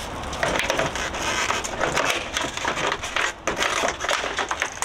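Irregular clattering, crunching and rustling of household items being handled and thrown out, with many short knocks and crackles close together.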